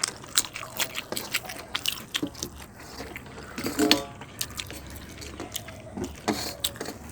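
Close-miked eating: wet chewing and mouth clicks and smacks while eating rice with curry, many short sharp clicks in quick succession. A short pitched sound comes about four seconds in, the loudest moment.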